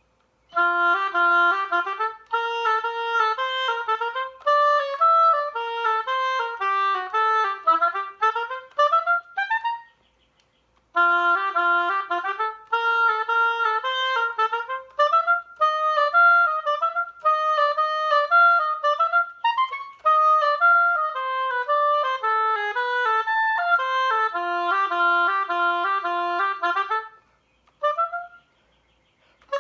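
Solo oboe playing a lively melodic passage of quick running notes, breaking off briefly about ten seconds in and again near the end.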